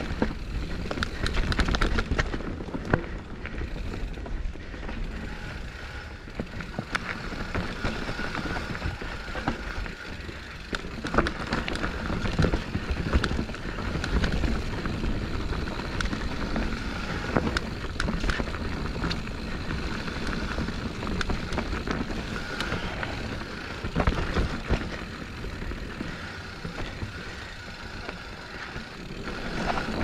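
Santa Cruz Bronson mountain bike riding down a rough, rocky trail. Its frame, chain and tyres clatter with frequent knocks over a constant rush of wind and rolling noise.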